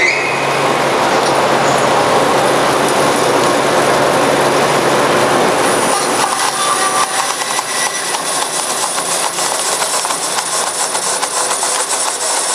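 Forrest Model 204 bandsaw running with a 1-inch, 3-tooth-per-inch hook-tooth carbon steel blade at about 3,000 feet per minute, the blade cutting into a roll of polypropylene film. About six seconds in the sound turns rougher, with fine irregular ticking.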